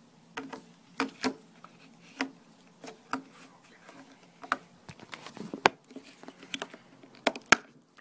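Irregular sharp plastic clicks and knocks of a BlackBerry phone being handled while its battery is put back in, the loudest clicks coming in the last few seconds.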